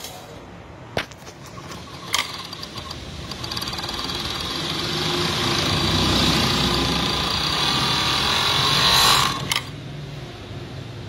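Jack C3 overlock sewing machine stitching fabric. After a few sharp clicks it starts about two seconds in, runs up to a steady sewing speed, then stops abruptly with a click near the end.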